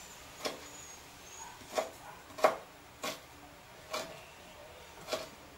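Kitchen knife chopping garlic on a plastic cutting board: six separate knocks of the blade on the board, unevenly spaced at roughly one a second, the loudest about halfway through.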